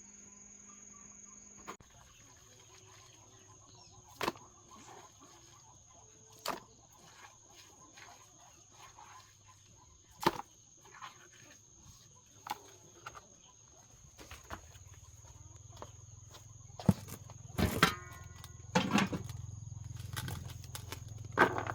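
Chickens pecking at pieces of green banana: scattered sharp taps, more frequent near the end, over an insect's steady high trill. A low rumble builds in the last several seconds.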